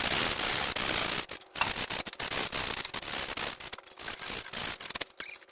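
Sanding on the newly welded-in steel inner sill panel: a rough, scratchy rubbing noise that runs in long strokes broken by short gaps.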